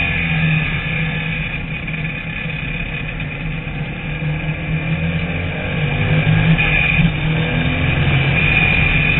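Onboard sound of a TVR Tuscan Challenge race car's engine at racing speed, with a steady high whine over it. The engine eases off in the first half and pulls harder again in the second half.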